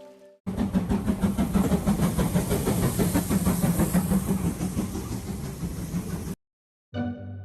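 SL Taiju steam locomotive running, a loud dense noise of steam and machinery with a strong low rumble, cutting off suddenly after about six seconds.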